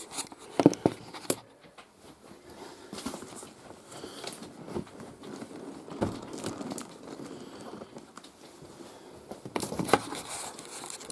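A large cardboard box being handled and turned over: rubbing and rustling of cardboard with a few sharp knocks, the loudest near the end.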